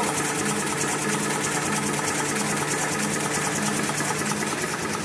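Full-embossing V-fold facial tissue folding machine running in production. It gives a steady hum with a fast, even clatter and a pulsing beat about twice a second.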